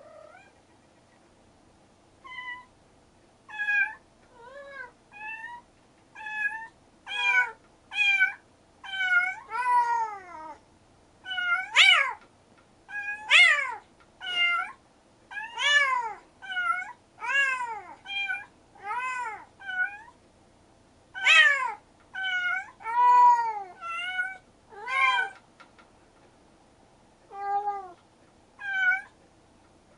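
Two cats meowing back and forth, about one meow a second, each call rising and then falling in pitch, some lower-voiced and some higher. A short pause comes near the end before two last meows.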